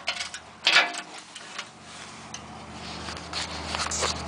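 Metal hand tools clinking and ticking against a truck's crossmember bolts, with one sharp clank just under a second in. A low steady hum comes in about two seconds in.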